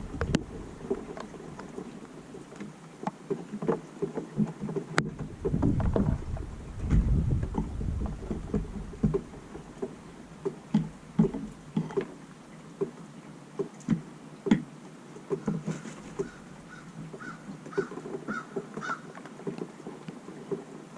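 Wind buffeting the microphone in gusts, with scattered light taps. In the second half comes a run of about eight short, evenly spaced bird calls, likely from the crows being fed.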